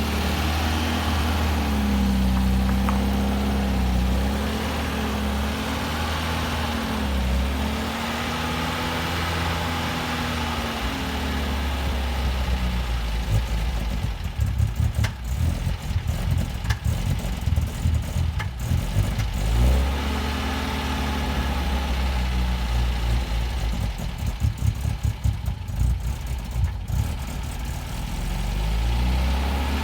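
1971 MGB's four-cylinder engine running, its pitch wavering up and down, with choppy, uneven stretches about halfway through and again near the end. The engine has a misfire that is waiting on a carburettor tuning.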